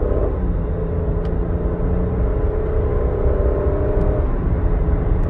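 Nissan Murano's V6 engine heard from inside the cabin under hard acceleration, running at high revs near 4,000 rpm. The engine note drops about a third of a second in and again about four seconds in, then climbs slowly each time, as the CVT steps through its programmed simulated shift points. Road and tyre noise run underneath.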